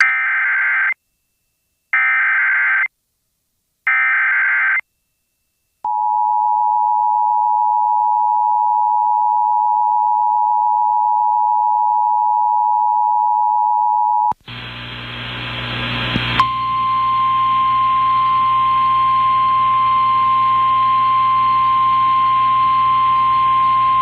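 Emergency Alert System tornado warning activation: three one-second screeches of SAME digital header tones with short gaps, then the two-tone EAS attention signal held for about eight seconds. It cuts to a hissy, humming relayed NOAA Weather Radio feed, in which the steady 1050 Hz weather alert tone begins about two seconds later.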